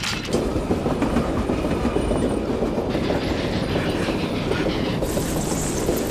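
A train running along the track at speed: a steady, loud rumble and rattle of the wheels on the rails, brightening about five seconds in.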